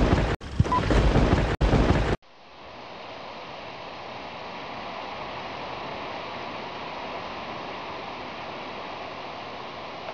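Old film-countdown sound effect: loud crackling noise with brief dropouts and short beeps, cutting off suddenly about two seconds in. A steady, softer rushing noise follows, like wind or surf.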